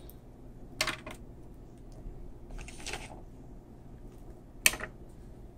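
A few light clicks and taps with a brief rustle as chopped onion is scattered by hand over beans in a disposable aluminium foil pan; the sharpest click comes near the end.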